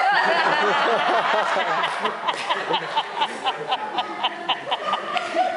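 Audience laughter breaking out suddenly as a puff of powder bursts over a performer's head, settling after a couple of seconds into a rhythmic ha-ha-ha of about four pulses a second.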